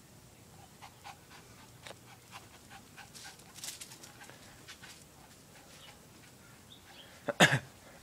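Lhasa apso puppy panting, with faint scuffs and clicks. A brief loud sound comes near the end.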